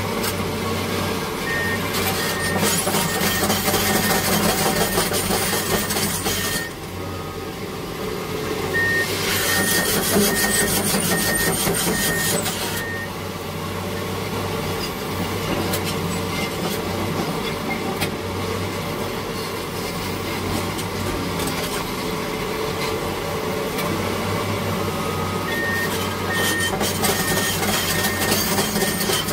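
Heavy diesel earthmoving machinery working, with a steady low engine drone and louder surges of working noise. A backup alarm beeps in three runs of evenly spaced beeps, a little under two a second.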